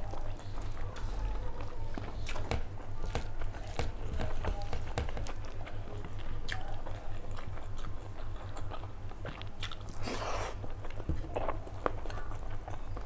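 Close-miked chewing of curry and rice eaten by hand: wet mouth clicks and smacks, with squelching from fingers working the rice and gravy. A brief rush of noise comes about ten seconds in, over a steady low hum.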